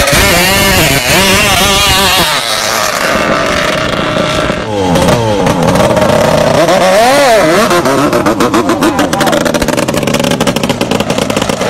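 Long-tail racing boat engines running at high revs, the pitch swinging up and down as the throttle is worked; in the last few seconds the sound turns into a fast, choppy stutter.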